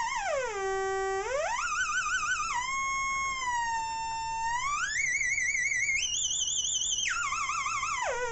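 MFOS Alien Screamer DIY noise-box synth oscillator: a buzzy electronic tone sliding up and down in pitch between held notes, some held notes warbling quickly under its LFO modulation and others steady. It drops low about half a second in, climbs to its highest near the end, then falls sharply.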